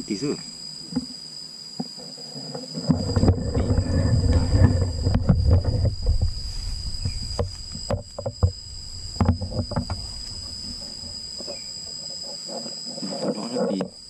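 Insects chirring: a steady high drone made of two constant pitches. About three seconds in, a loud low rustling rumble comes in and lasts some five seconds, with scattered clicks.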